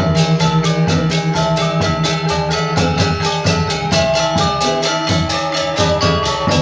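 Balinese gamelan ensemble playing: bronze metallophones struck in rapid, evenly spaced strokes, over a steady low gong tone that swells again near the end.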